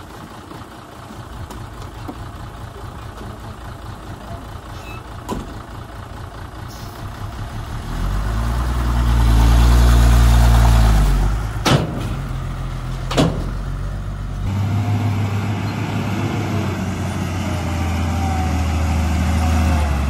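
Komatsu D20P bulldozer's diesel engine running, its pitch bending up and down as it works harder for a few seconds about eight seconds in. Two sharp clanks a second and a half apart follow, and then it runs steadily again.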